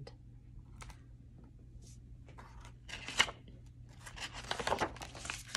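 Paper rustling as a page of a hardcover picture book is turned, with a sharp crackle about three seconds in and a longer rustle over the next couple of seconds.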